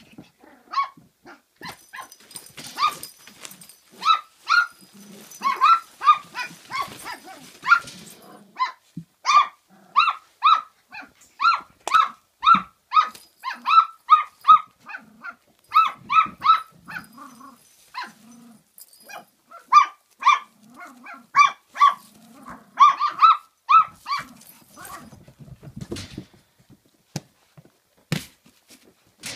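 Kooikerhondje puppy barking in play: runs of short, high-pitched barks, about two a second, that die away near the end, followed by a few faint knocks.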